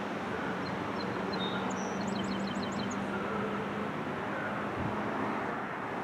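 Strong wind buffeting the microphone, a steady rushing noise throughout. A small bird sings a short run of quick, high chirps about one to three seconds in, and a low steady hum sits underneath.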